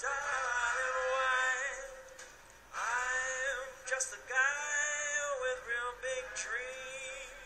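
A man singing long, wordless held and gliding notes, breaking off briefly about two seconds in. The sound is thin and without bass, as if played back through a television speaker.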